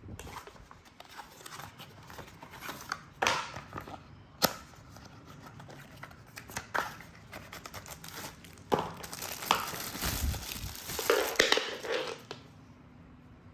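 Plastic packaging crinkled, crumpled and torn by hand, with irregular sharp clicks and crackles that stop about a second before the end.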